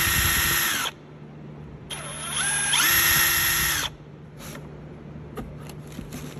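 Snap-on CT9010 18 V brushless 3/8-inch impact wrench running free, its motor whine climbing as the variable speed trigger is squeezed. It holds at top speed and stops just under a second in. A second squeeze about two seconds in ramps the whine up again for about two seconds before it stops, followed by a few light clicks.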